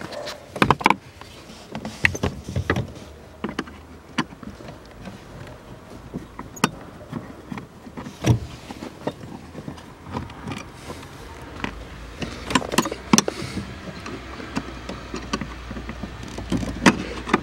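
Scattered clicks and light knocks of a Phillips screwdriver and hands working on the screws of a metal bracket among the plastic trim under a car's dashboard, at irregular times.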